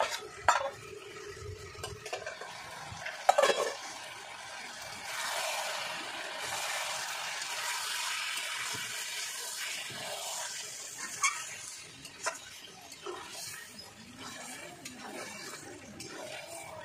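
Pieces of chicken frying in a metal kadai over a wood fire. A couple of sharp metal clinks sound in the first few seconds, then the pan sizzles steadily for about five seconds. After that a metal spatula scrapes and taps against the pan as the chicken is stirred.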